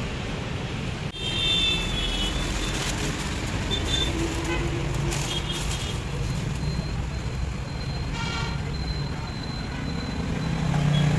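Road traffic running steadily past, with several short vehicle horn toots.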